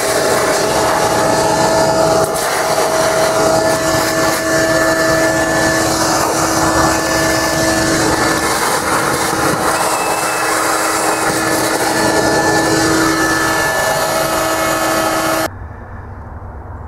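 Shop vac running with a steady whine, its hose sucking dirt and debris out of the starter cavity under the intake manifold. The sound cuts off suddenly near the end.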